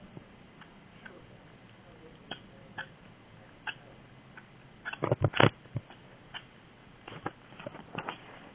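Dog chewing a toy that gives short, odd clicking noises under her bite. They come scattered, with a louder rapid cluster about five seconds in and another flurry near the end.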